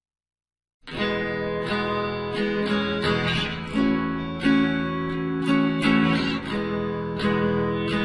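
Background music: acoustic guitar strumming, starting abruptly about a second in after silence.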